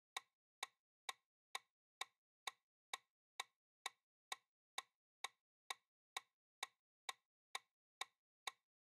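Countdown timer sound effect: short, faint ticks at an even pace of about two a second, marking off the answer time of a quiz question.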